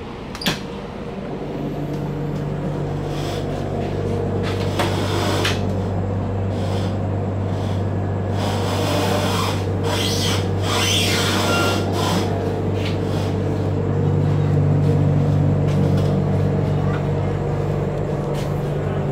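Steady low hum of an Indian Railways Humsafar Express coach interior, with a sharp click about half a second in and a stretch of rattling and rubbing near the middle.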